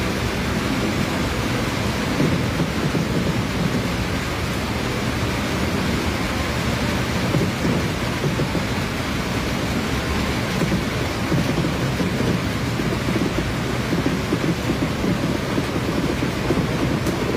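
A fireworks display at full barrage: many aerial shells bursting over and into one another, merging into a continuous rumble and crackle in which no single bang stands out.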